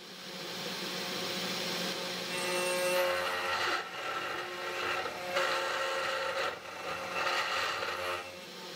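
CNC 3018 Pro Max router's spindle running steadily while an end mill cuts a deep groove in acrylic plastic. The cutting noise swells three times in longer passes, each ending in a short dip.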